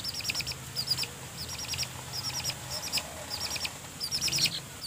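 Birds chirping: short, high notes in quick clusters of four or five, repeating about once a second.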